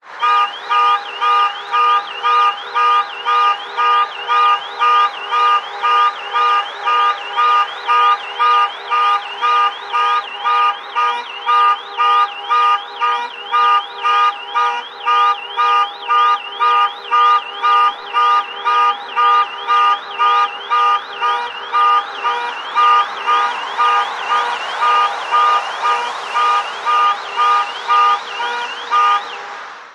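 Car alarm sounding: a harsh pitched tone pulsing on and off about twice a second, with a fast warbling chirp riding on top. It cuts off suddenly at the very end.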